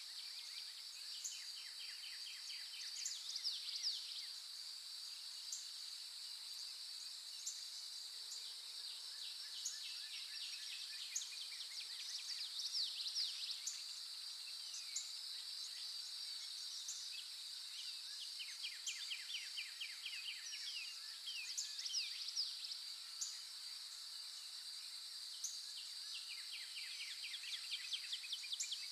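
A steady, high insect chorus with birds calling over it: trains of quick repeated notes and short gliding whistled calls every few seconds.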